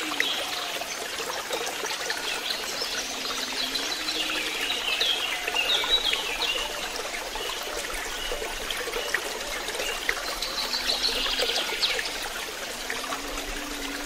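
Steady running, splashing water of a waterfall, with birds chirping and calling over it in short high bursts. A few low, rising calls come and go beneath the chirps.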